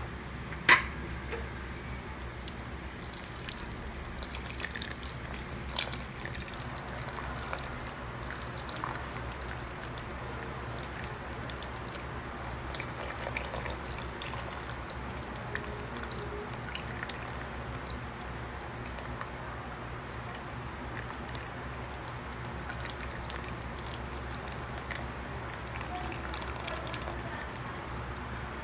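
A thin stream of liquid poured from a can, trickling and dribbling into a large stainless-steel pot of soup. There is a sharp knock about a second in and a few light clicks later.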